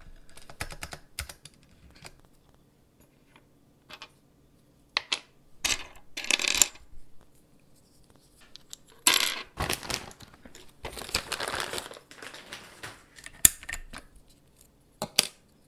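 Small hard keyboard parts (keycaps and switches) clicking, clinking and clattering as they are handled and dropped, with a few longer rattling bursts a little before halfway and around two-thirds through.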